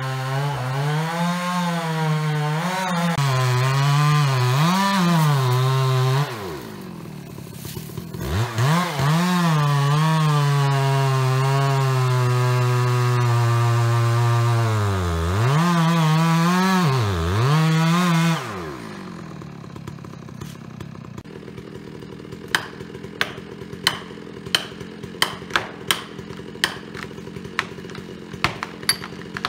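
Stihl MS 660 single-cylinder two-stroke chainsaw cutting at the base of a tree, its engine pitch dipping under load and rising again. The revs drop away about six seconds in, the saw picks up again and cuts until the revs fall away about eighteen seconds in. After that the saw is no longer heard cutting, and a run of sharp clicks and snaps follows.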